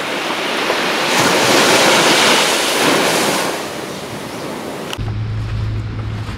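Small waves breaking and washing up onto a sandy beach, the surf swelling for a couple of seconds and then easing off. About five seconds in it cuts to a steady low hum.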